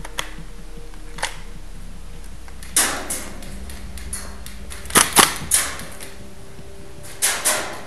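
Airsoft gas-blowback guns firing in a small indoor space: sharp single cracks, several coming as quick pairs, with a short echo after the loudest.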